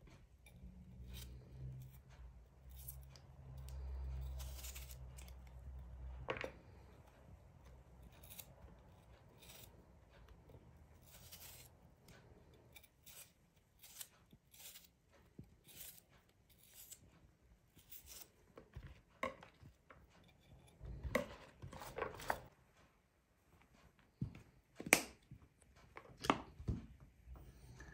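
Kitchen knife slicing a raw potato held in the hand into thin strips: a series of short, crisp cuts at an uneven pace. A few louder knocks come near the end.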